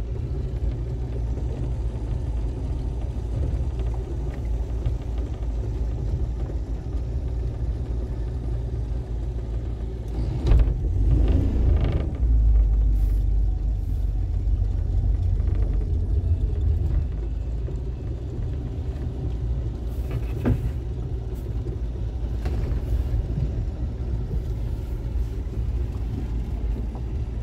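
Mercury 60 outboard motor driving a small launch, a steady low drone that grows louder for several seconds in the middle. A single sharp knock comes about twenty seconds in.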